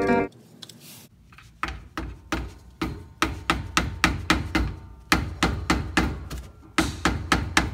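Rapid hammer taps, about three a second, driving a pry tool behind the old pinion seal to work it out of the rear differential housing.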